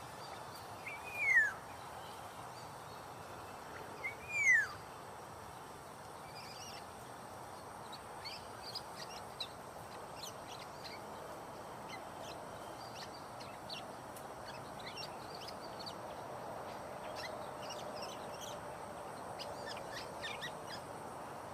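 Wild birds calling outdoors: two loud whistles that slide downward, about a second and about four seconds in, followed by many short, high chirps scattered through the rest, over a steady background hiss.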